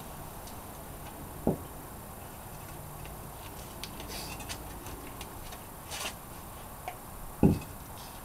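Engine parts and tools being handled during cylinder-head removal: scattered light metallic clicks and two short dull knocks, the louder one near the end.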